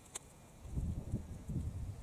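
Sun-dried weeds burning in an open fire, with one sharp crackle just after the start. Wind buffets the microphone in uneven low gusts.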